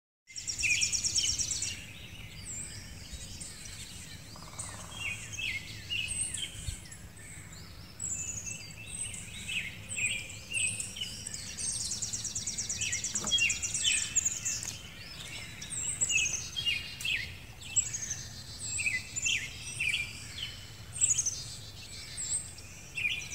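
Several birds singing at once: many short chirps and repeated fast, high trills, over a low steady background noise.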